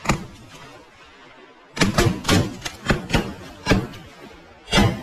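A ragged volley of shotgun shots from several guns: one just after the start, then about seven more in quick, uneven succession from about two seconds in.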